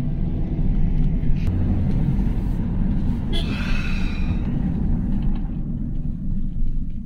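Car driving, heard from inside the cabin: a steady low rumble of engine and tyre noise, with a brief higher-pitched sound lasting about a second a little past three seconds in.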